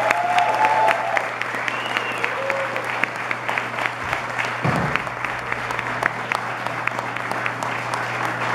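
Audience applauding, with dense steady clapping and a few shouted cheers in the first second or so.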